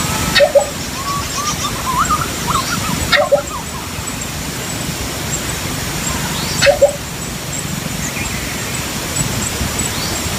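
Philippine coucal calling: three short low calls about three seconds apart, with softer chirping notes between the first two, over a steady hiss.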